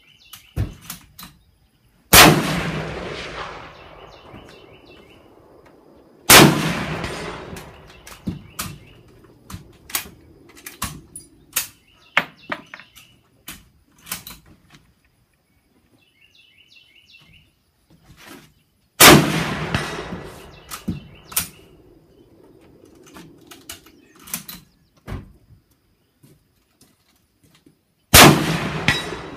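Four loud rifle shots, about 2, 6, 19 and 28 seconds in, each followed by a long echoing tail. Between them come fainter shots and clicks from elsewhere on the firing line, and birds chirping.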